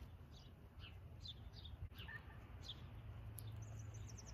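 Songbirds chirping faintly: short, high, downward-slurred chirp notes at about two a second, with a quick high trill near the end, over a steady low rumble.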